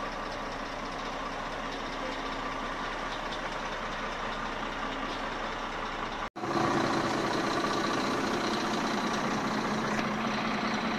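Heavy diesel truck engine idling with a steady hum. A brief dropout about six seconds in, after which it is a little louder.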